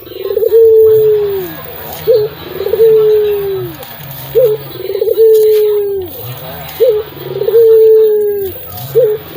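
Puter (ringneck dove) cooing repeatedly, about four phrases roughly two seconds apart. Each phrase is a short rising note, a quick rolling trill, then one long low coo that falls away at the end.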